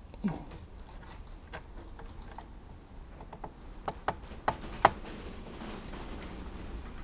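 A few small, sharp plastic clicks and taps from a car instrument cluster as a gauge needle is pressed back onto its spindle and adjusted by hand. The loudest come in a quick run about four to five seconds in.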